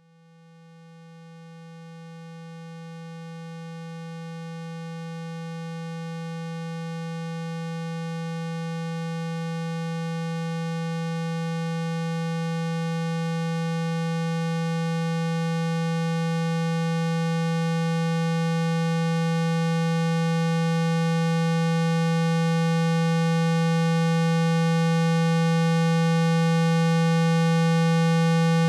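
Electronically generated 165 Hz tone: a steady low hum with fainter higher overtones, fading in from near silence and growing steadily louder. It is a speaker-cleaning tone, meant to vibrate dust out of a phone's loudspeaker.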